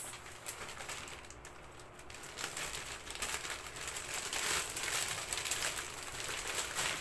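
Plastic parcel packaging crinkling and rustling as it is opened by hand, with many quick crackles that grow louder about halfway through.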